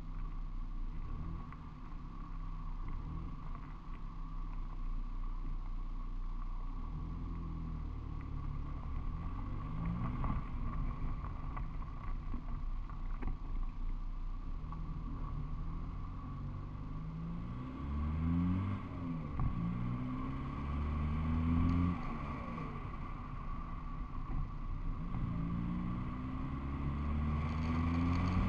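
Car engine and road noise heard from a camera mounted on the outside of the car, the engine speeding up through the gears several times, its pitch rising and dropping back at each change.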